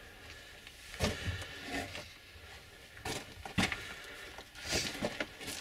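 Irregular crunches and scrapes of loose rock and gravel under hands and feet as a person crawls through a low, timber-lined mine tunnel, about five separate shuffles.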